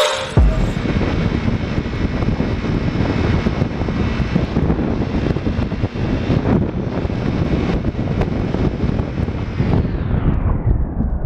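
Wind rush and a low engine and road rumble on a motorcycle's onboard camera microphone while riding at speed on a dual carriageway. About ten seconds in the high end fades away, leaving a duller, muffled rumble.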